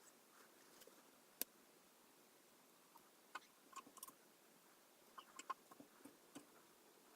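Light, scattered clicks and taps of hands and tools working on a plastic model kit, with one sharper tap about a second and a half in and a cluster of small clicks in the second half, over faint hiss.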